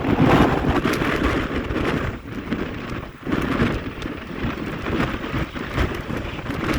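Heavy wind buffeting the microphone on a moving train, gusting unevenly, with a brief lull about three seconds in.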